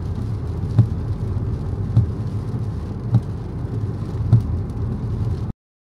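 Rain with a steady low rumble under it and a soft thump about once a second, cutting off abruptly near the end.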